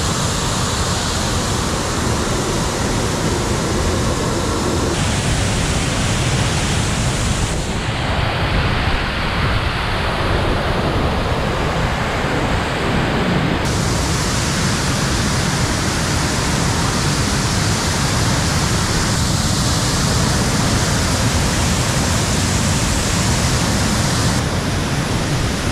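Loud, steady rush of a waterfall plunging into a pool, heard up close. Its tone changes abruptly several times.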